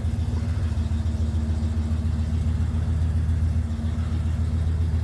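Diesel engine of an EMD F59PHI passenger locomotive running at a steady speed, a deep even hum with no change in pitch.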